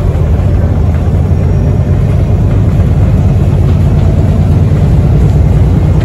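VDL SB200 bus's diesel engine running under way, heard from inside the cabin as a loud, steady low drone that grows slightly louder in the second half. A faint whine comes in about halfway through: the 'crying' turbocharger whine this bus is known for.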